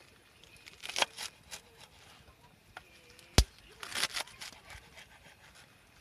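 Kitchen knife slicing through a bunch of green onions on a wooden cutting board: crisp cuts in small clusters, with one sharp knock of the blade on the board about three and a half seconds in.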